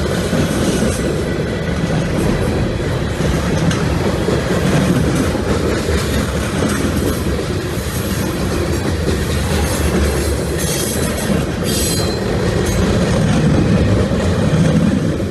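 Freight cars of a CSX manifest train rolling past: a steady rumble of steel wheels on the rail with clickety-clack, and a brief high wheel squeal about eleven seconds in.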